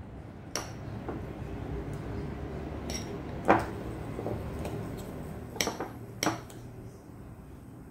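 Metal utensil clinking and scraping against a ceramic bowl while raw eggs are stirred into ground meat, with several scattered clinks, the loudest about halfway through.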